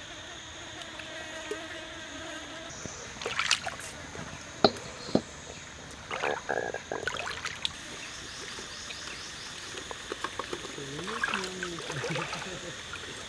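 Stream ambience with a steady high-pitched drone of wildlife, two sharp knocks about five seconds in, and bouts of water splashing, the last from bare feet wading through the shallow stream.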